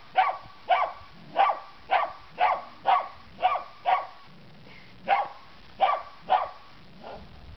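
Chocolate cocker spaniel barking at a cockroach in short, sharp barks, about two a second. The barks pause about four seconds in, then three more follow before she falls quiet near the end.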